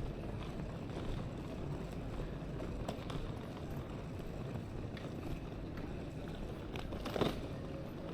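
Busy railway station hall ambience: a steady low rumble and hiss with scattered clicks, and a sharper knock about seven seconds in.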